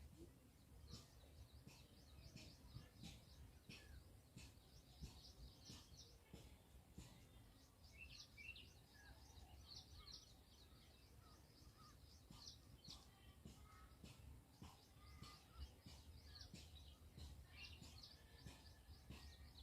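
Near silence, with faint small bird chirps scattered throughout over a low hum.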